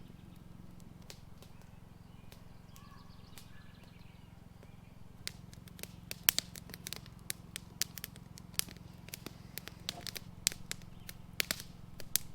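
Irregular sharp clicks and crackles over a faint steady low hum, the clicks coming thick and fast from about five seconds in.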